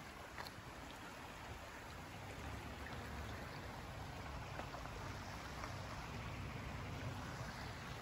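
Small forest creek running steadily over rocks, faint, with a low rumble of wind on the microphone.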